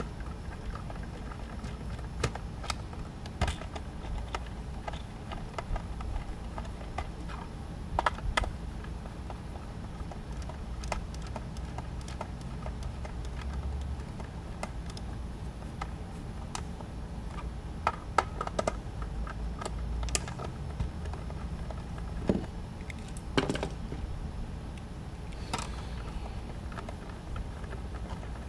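Scattered light clicks and knocks of a FrSky X9Lite transmitter's plastic case being handled and its back-plate screws driven in with a hand screwdriver, over a low steady background hum.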